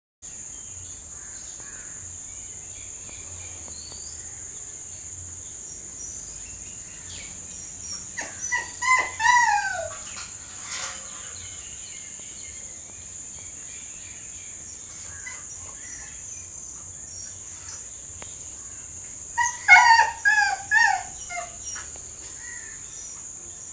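Two bouts of animal calls, each a quick run of short calls falling in pitch, about eight seconds in and again near the end, over a steady high-pitched insect drone.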